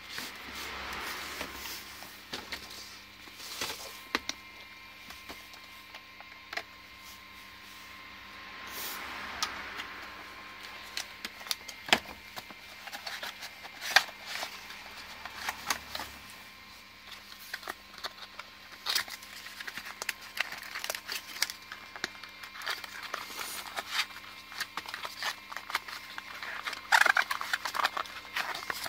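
Hands handling a cardboard box and the clear plastic blister tray inside it: rustling and crinkling of plastic and card, with scattered clicks and knocks and a few sharper ones about halfway through.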